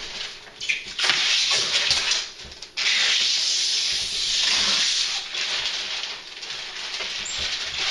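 Protective plastic film being peeled off a new LG refrigerator: a loud tearing, rustling hiss in several pulls, the longest about three seconds in.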